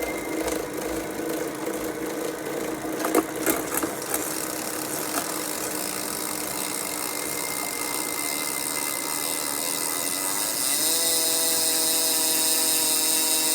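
SRAM Force AXS bicycle drivetrain running with a steady mechanical whine, the unwanted noise the rider is trying to trace. A few clicks come about three seconds in. Near eleven seconds in, a new, higher whine joins and the sound gets louder.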